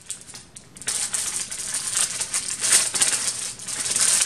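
Paper envelope and seed packets rustling and crinkling as they are opened and handled, with a dry rattle of seeds shifting in the packets. It starts about a second in, after a brief lull.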